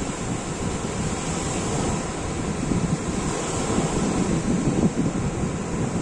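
Small sea waves breaking and washing onto the shore in a steady surf, with wind rumbling on the microphone.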